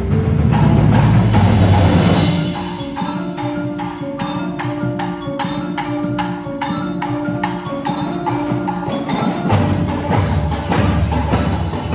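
Music with a fast, steady clicking beat, about three clicks a second, over held pitched tones; the low end drops out a couple of seconds in and comes back near the end.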